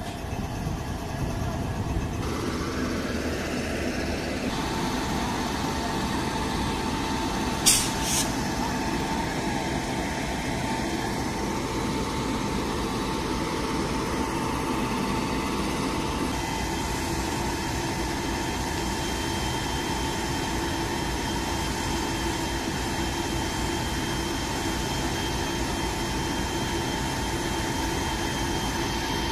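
Diesel and electric locomotives standing coupled with their machinery running: a steady mechanical drone from the WDG4 diesel's idling engine and the WAG-9 electric. A whine rises over a couple of seconds and then holds steady, and two sharp knocks come close together about eight seconds in.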